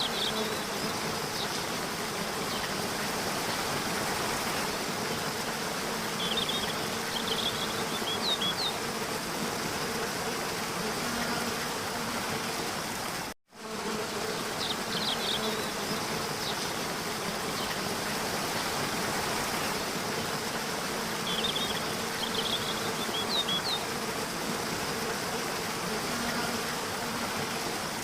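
Steady rushing water with a low even hum, and short bursts of high bird chirps now and then. The sound cuts out for a moment about halfway through, and the same passage then starts over.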